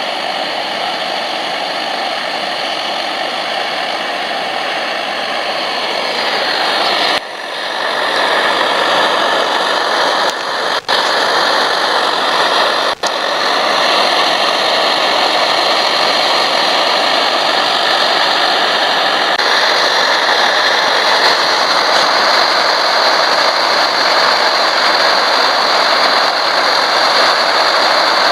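MSR DragonFly liquid-fuel stove burning at full flame with a steady, loud roar, broken by a few abrupt cuts.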